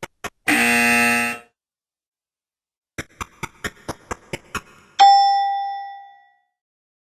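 Game-show sound effects: quick ticks at about four a second, a harsh buzzer lasting about a second (the wrong-answer buzz), a second run of about eight ticks, then a bright bell ding that rings out and fades (the correct-answer chime).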